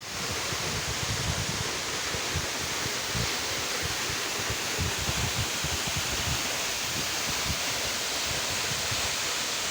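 Waterfall rushing: a steady wash of falling water with uneven low rumbles underneath.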